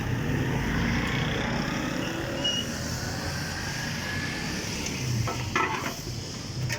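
Steady street traffic and engine noise with a low rumble, fading a little after the first second or so, and a few short knocks about five seconds in.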